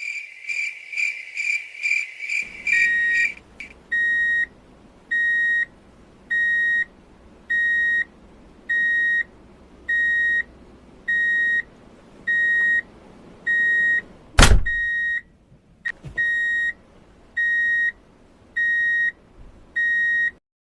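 Electronic beeper sound effect: a quick run of rapid high-pitched pulses, then a single high beep repeating steadily about once every second and a quarter. One loud thump breaks in about fourteen seconds in, and the beeping pauses briefly after it.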